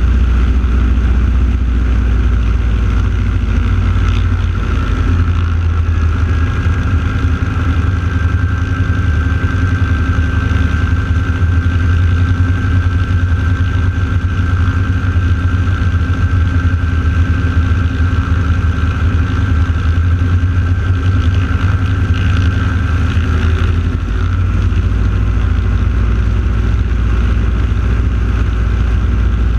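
Steady drone of North American T-6 Texan radial engines running, just after the team's takeoff. A thin steady high tone sits over it from about six seconds in until about twenty-three seconds.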